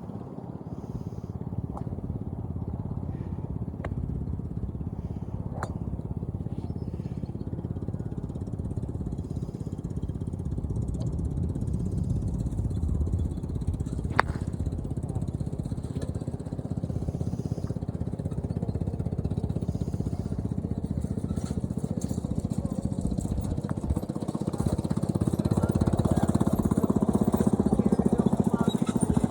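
A motor running steadily with a low rumble that grows louder over the last few seconds, with a few sharp clicks over it, the clearest about halfway through.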